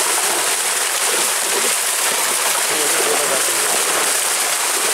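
Continuous churning and splashing of water as a mass of large fish thrashes and leaps inside a seine net being drawn in.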